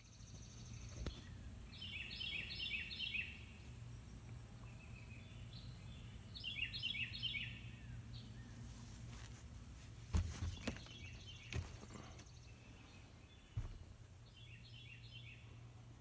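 A songbird singing outdoors: three short phrases of quick, repeated descending chirps, a few seconds apart. Between them come a few sharp knocks and clunks, the loudest about ten seconds in, over a steady low hum.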